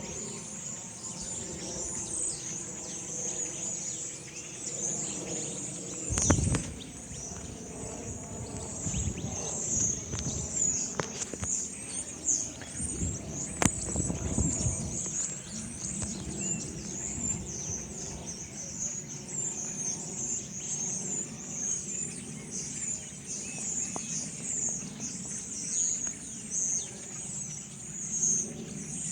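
A large flock of small birds calling all at once, a dense, unbroken high chatter. A low rumble comes through about six seconds in and again around fourteen seconds.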